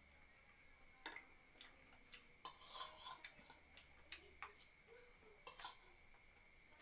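Spoon clinking and scraping against a ceramic bowl while scooping rice: a dozen or so light, irregular clicks, with a short cluster about three seconds in.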